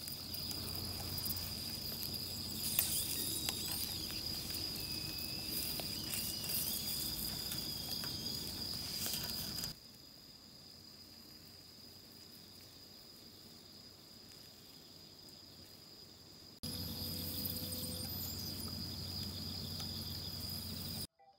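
Night insects trilling in one steady, unbroken high tone over a low background hiss. The hiss drops away for several seconds midway and then comes back.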